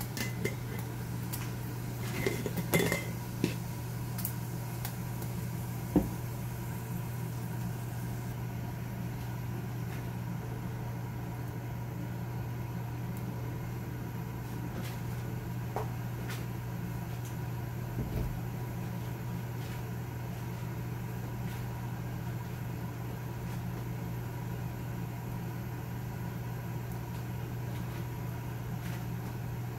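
Steady low mechanical hum of a kitchen appliance, with a few light clinks of dishes and a glass jar in the first few seconds, a single sharp knock about six seconds in and a dull thump later on.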